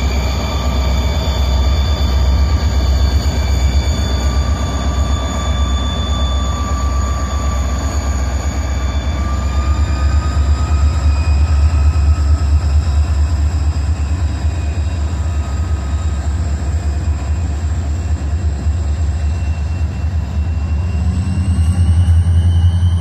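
Turbochargers of EMD two-stroke diesel locomotives whining as they spool up under load, over a heavy low engine rumble. The whine climbs in pitch about ten seconds in and again near the end.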